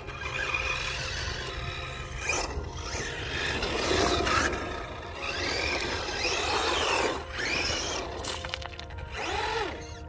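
Electric motor of an HSP Brontosaurus RC monster truck whining, its pitch rising and falling several times as the throttle is applied and released, over background music.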